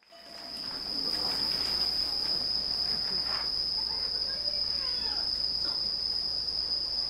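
Night insects trilling in one steady, high, unbroken tone, with a faint murmur of voices beneath.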